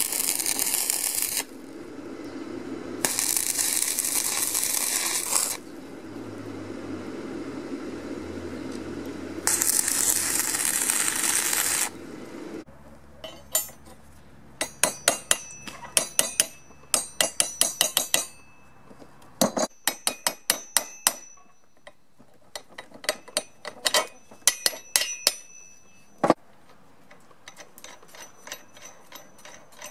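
Stick (arc) welding on steel, a steady crackling hiss in three stretches of a few seconds each. After about twelve seconds it gives way to sharp metallic clicks and clinks, often in quick runs, as steel bearing rollers and parts are handled against a steel plate.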